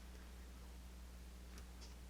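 Near silence with a steady low electrical hum; near the end, two faint clicks of a lock pick working the pins of a pin-tumbler lock.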